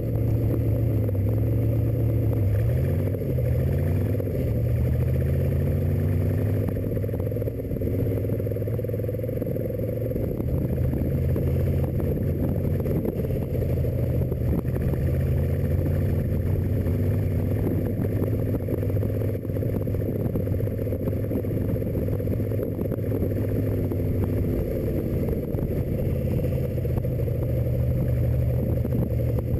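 Dodge Brothers rat rod's engine, breathing through a home-built intake and Stromberg carburettors, running steadily as the car drives along. The engine note dips and rises briefly about three seconds in.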